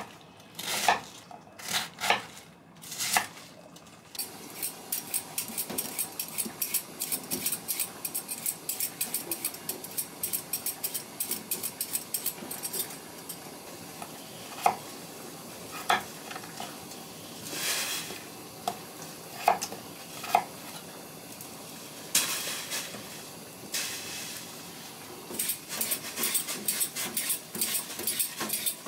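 Kitchen knife cutting vegetables on a wooden chopping board. A few heavy knocks as it goes through a cabbage are followed by a long run of quick chopping clicks, then sparser single knocks as a potato is cut. Near the end come rapid scraping strokes of a peeler on a carrot.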